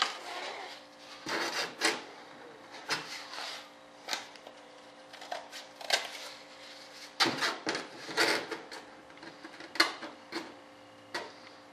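Irregular scraping, rustling and light knocks of a cardboard bulkhead template being whittled with a hobby knife and pushed into a model jet fuselage to check its fit.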